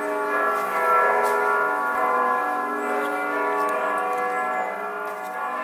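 Newly installed church bells ringing, many sustained tones overlapping and sounding together.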